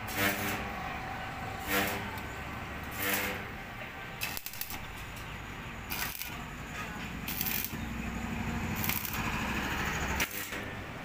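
Electric arc welding on a steel motorcycle frame: an irregular crackle and hiss with sharp pops, steadier for a couple of seconds near the end. Three short pitched sounds come in the first three seconds.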